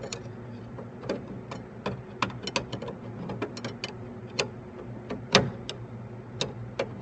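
Irregular small clicks and scrapes of a metal hand tool turning and prying the threaded bezel of a 1973 Mustang's wiper/washer switch loose a little at a time, with a sharper click about five seconds in.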